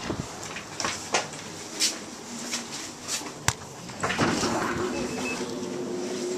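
Entrance door being opened and passed through: a few sharp clicks and knocks, then steadier room noise from about four seconds in.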